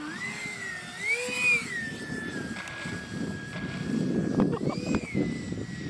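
Radio-controlled A-4 Skyhawk model jet taking off and flying low past, its high-pitched whine gliding up and down in pitch and then holding steady. A rough rushing noise grows underneath in the second half.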